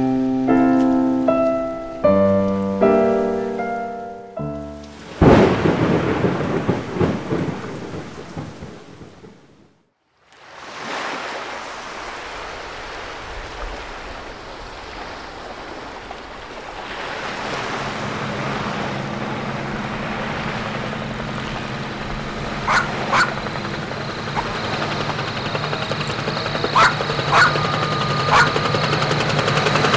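Movie-style soundtrack: a few seconds of music, then a sudden thunderclap that rolls into heavy rain and fades away. After a short hush, a steady rushing noise builds with a low hum from about the middle on, the sound of an approaching rescue helicopter, with a few sharp cracks near the end.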